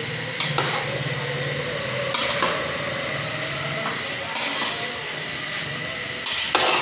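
Metal slotted spoon scraping and knocking against the sides of a large metal pot as grated carrots cooking in milk are stirred. There are about four strokes, roughly two seconds apart, over a steady low hum.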